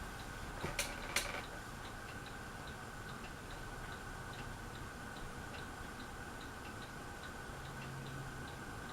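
Harbor Breeze Aristocrat ceiling fan running at medium speed, with a steady motor hum and a light, regular clicking a little over two times a second. There are two sharper clicks about a second in.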